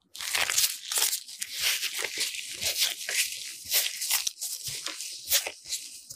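Hands in thin plastic gloves stretching and kneading sticky chocolate glutinous-rice dough: the dough peels and tears as it pulls apart and the gloves crinkle, a dense run of small crackles.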